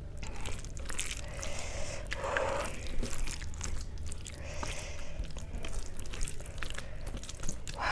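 Close-miked eating sounds: chewing, and the wet squish of a hand mixing rice into kadhi in a steel plate, with many small clicks and smacks.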